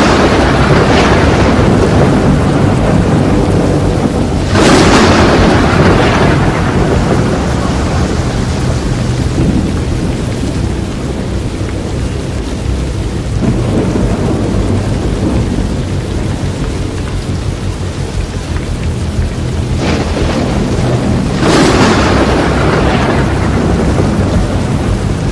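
Tornado roaring: a loud, continuous rush of wind with a deep rumble beneath, swelling in surges about five seconds in and again near the end.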